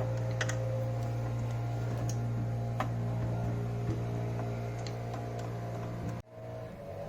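Steady low hum with a few light clicks and taps of small tools on the coffee machine's parts; the sound cuts off abruptly about six seconds in.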